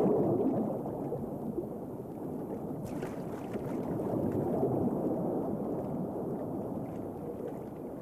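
Water churning and bubbling from a giant kingfisher's plunge into the shallows, dying away slowly. A brief splash comes about three seconds in.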